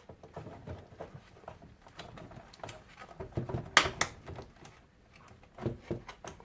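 Hands handling dishwasher door parts: scattered light clicks and knocks, with two sharp clicks close together about four seconds in.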